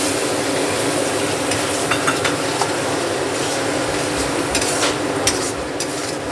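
Tomato puree frying and sizzling in hot oil in a metal kadhai over fried onion, ginger and garlic, stirred with a spatula. A few short clicks of the spatula and bowl against the pan come between about two and six seconds in.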